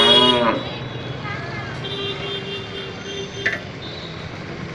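A cow mooing, its loud call ending about half a second in. It is followed by quieter street background with a held tone and a single sharp click a little after three seconds.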